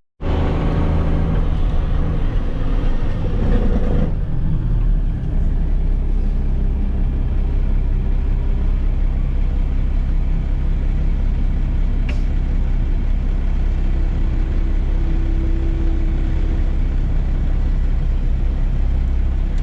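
A silage truck's engine running steadily with a low drone, heard from inside the cab. The sound drops out for an instant at the very start and shifts in character about four seconds in.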